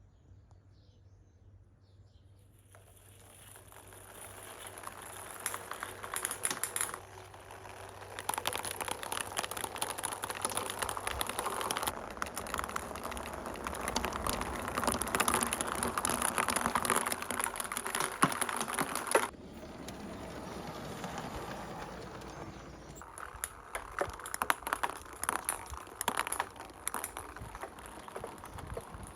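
Marbles rolling and clattering down a marble run, a dense stream of small clicks and rattles that builds after a few seconds. It cuts off abruptly about two-thirds of the way through, then goes on as sparser clicks.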